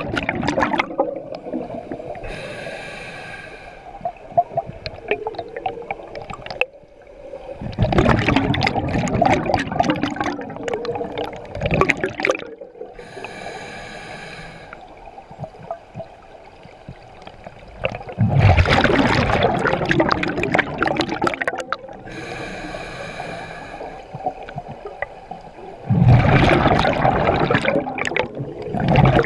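Scuba diver breathing through a regulator underwater: a slow cycle of short hissing inhalations followed by longer, louder bubbling exhalations, about three breaths, one roughly every ten seconds.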